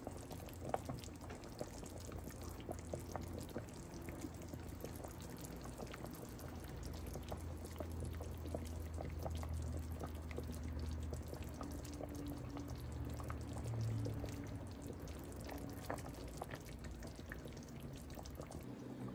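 Beef shank and marrow-bone broth boiling in a stainless steel stockpot, with a dense, steady bubbling and popping over a low steady hum.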